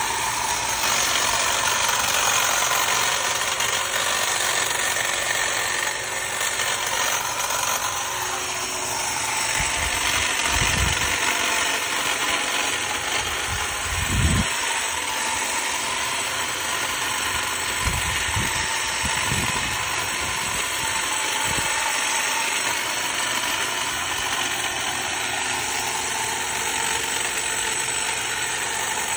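Cordless battery hedge trimmer running steadily, its reciprocating blades clipping through boxwood, with a few low thumps near the middle.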